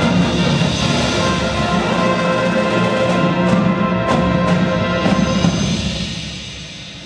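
High school marching band playing a full, sustained brass passage, which fades down over the last second or two.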